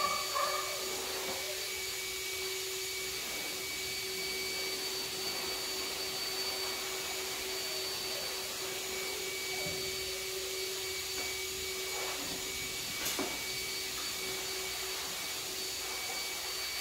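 Steady whir of an electric motor, like a fan or blower, with an even hiss and a held hum. A single short click about thirteen seconds in.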